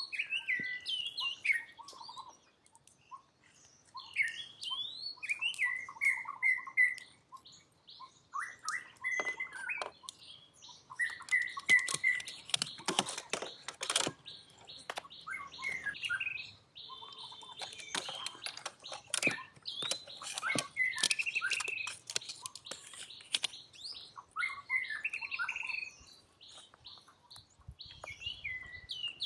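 Many short, high-pitched animal chirps and squeaks, some gliding up or down in pitch, with a burst of sharp clicks around the middle.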